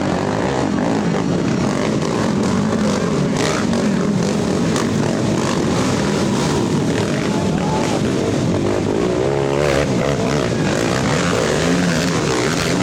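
Several racing ATV engines running and revving, their pitch rising and falling as they work through the gears. One engine swings up and down in pitch sharply about three-quarters of the way through.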